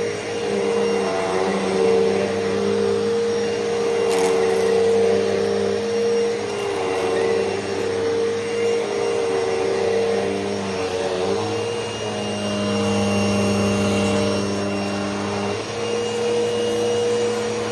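Hoover Elite Rewind upright vacuum cleaner running steadily while vacuuming, its motor tone shifting slightly in pitch a few times. A brief click about four seconds in.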